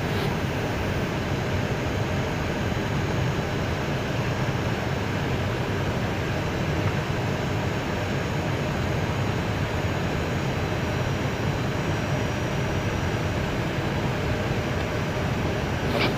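Steady cockpit noise inside an Airbus A320 on approach with flaps 2 set: an even rush of airflow and cabin ventilation over a low hum, unchanging throughout.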